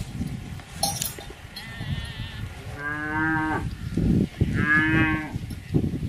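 Cows mooing: two calls, about three seconds in and about a second and a half later, the first falling in pitch at its end, over a low rustling noise.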